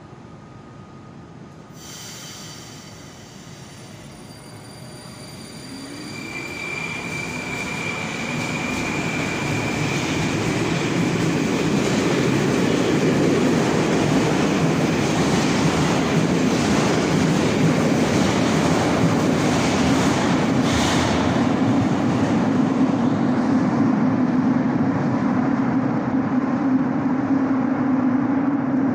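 Moscow Metro train of the 81-765 "Moskva" type pulling out of a station. From about six seconds its traction motors whine, rising in pitch as it accelerates. Wheel and running noise then builds to a loud, steady rumble as the cars pass, with a steady low hum near the end.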